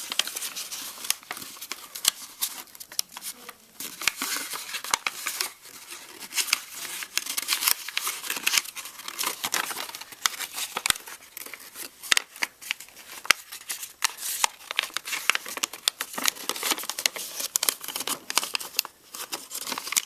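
Origami paper crinkling and crackling as it is folded and creased by hand, a dense run of sharp, crisp crackles that comes and goes in short flurries.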